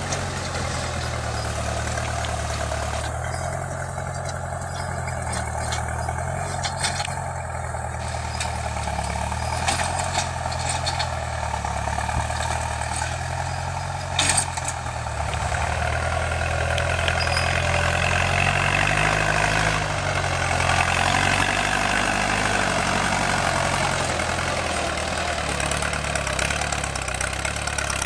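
Ford 6610 tractor's four-cylinder diesel engine running steadily under load while pulling a disc plough through the soil, a little louder in the second half. A single sharp knock about halfway through.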